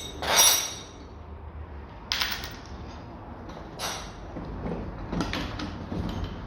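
A few metallic clinks and knocks as shock absorber strut parts and tools are handled while taking the strut mount off. The loudest, with a short ring, comes about half a second in, and others follow near two, four and five seconds.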